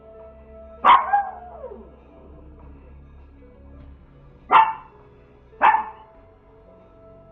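Small dog barking three times: a sharp bark about a second in that trails off in a falling tone, then two short barks about a second apart near the end. Heard through a home security camera's microphone.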